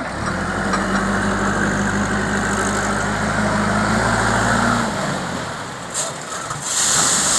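Heavy diesel engine of earthmoving machinery running steadily, then dropping away about five seconds in, followed by short bursts of hiss near the end.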